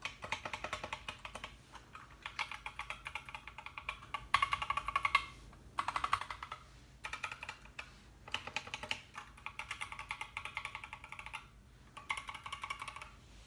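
GK61 mechanical keyboard with Gateron optical yellow linear switches being typed on fast, a rapid run of key clacks in bursts broken by brief pauses.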